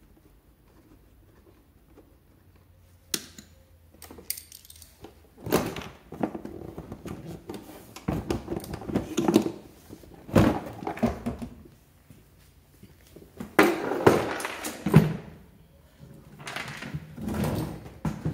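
Hard plastic body panels of a Peugeot Vivacity 3 scooter being unclipped and pulled off: a sharp click about three seconds in, then repeated bursts of plastic knocking and rattling.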